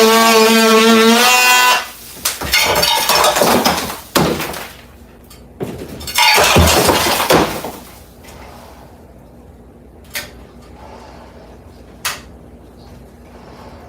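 A steady whine cuts off in the first two seconds. Then come two loud bouts of crunching and crashing, like hard material breaking, and two sharp knocks near the end.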